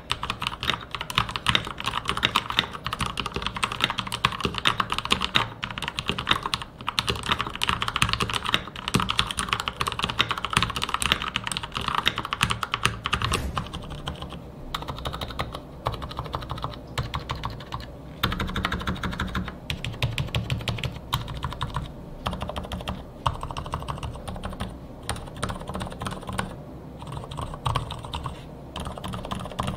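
Fully lubed Marspro Shooting Star mechanical keyboard being typed on in a fast, continuous run, first with linear red switches giving bright, crisp clacks. About halfway through it changes to silent red switches, and the strokes become softer and deeper, with no spring ping.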